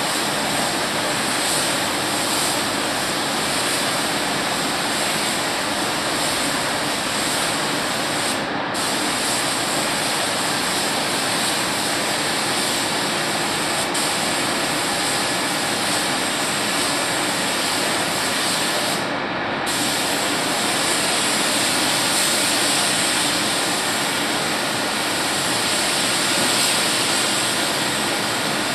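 Compressed-air paint spray gun hissing steadily as the car's panels are sprayed. The hiss cuts out briefly twice, about a third and two thirds of the way through, while a steady lower noise carries on underneath.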